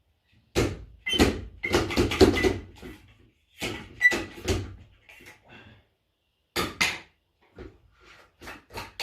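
Hard plastic fan parts and tools being handled during assembly: irregular clusters of knocks, clicks and clatters, with short pauses between them.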